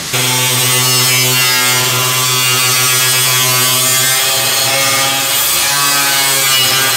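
A handheld power tool running loudly at a steady high speed, a whirring motor tone over a hiss. It switches on abruptly.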